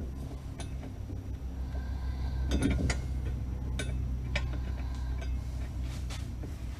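Scattered light metallic clicks and scrapes as steel bolts are handled and started into the threaded holes of a metal drill press base, over a steady low hum.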